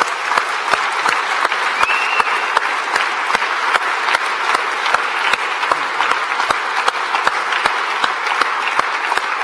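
Audience applauding steadily, with one pair of hands clapping close by about three times a second.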